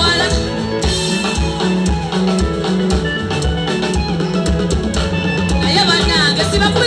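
Live band playing upbeat dance music with a steady drum-kit beat and bass, and a singing voice coming in near the end.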